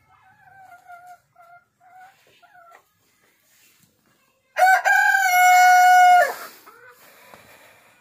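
Chickens calling: soft short pitched calls for the first few seconds, then a rooster crows loudly once, about four and a half seconds in, a long call held on one pitch that drops off at the end.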